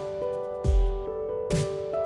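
Background music with a slow, steady beat: sharp drum hits alternating with deep low thumps about once a second, under held sustained notes.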